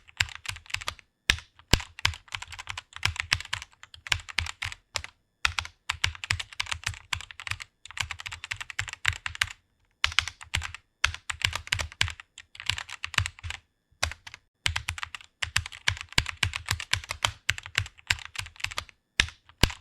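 Fast typing on a computer keyboard: rapid key clicks in runs of a few seconds, broken by brief pauses.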